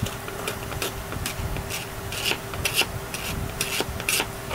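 Short, irregular rubbing and scraping strokes as old glue residue is worked off an RC helicopter's frame, over a faint steady hum.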